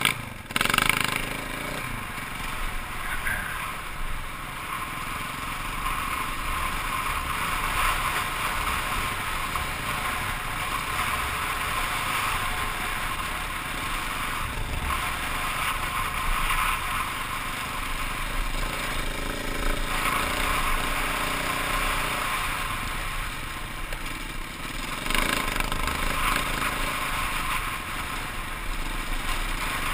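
KTM dirt bike riding along a gravel trail, its engine running steadily under heavy wind noise on the microphone. A short knock comes just under a second in.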